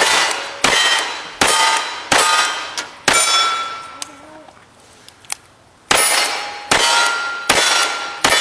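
Gunshots, each followed by a steel target ringing as it is hit. There are five shots about three-quarters of a second apart, a pause of nearly three seconds, then four more at the same quick pace. No miss is heard.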